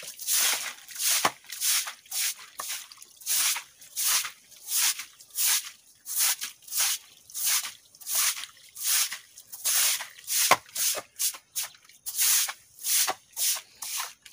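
A broom sweeping a bare dirt floor in quick rhythmic swishes, about two strokes a second, with a couple of sharp knocks.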